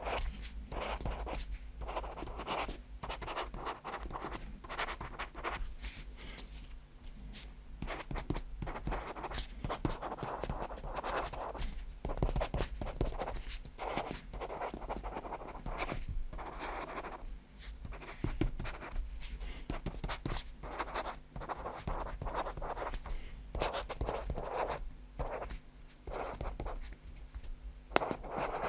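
Boox Pen2Pro stylus nib scratching across the Boox Nova Air's e-ink screen in short irregular strokes of handwriting, with sharp ticks as the nib touches down and lifts. It is picked up close by a microphone resting on the tablet. The nib is brand new and not yet written in.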